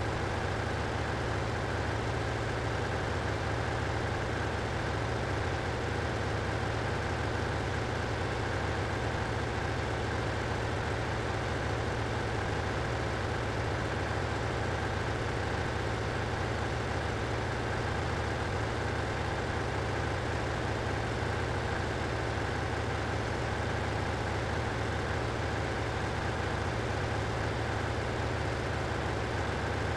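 Steady drone of machinery running in a ship's engine room: a low hum with a higher whine above it.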